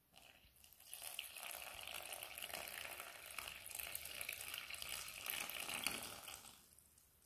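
Tap water pouring in a steady stream from a measuring jug into flour in a glass bowl. It is a soft, even trickle that starts about a second in and stops shortly before the end.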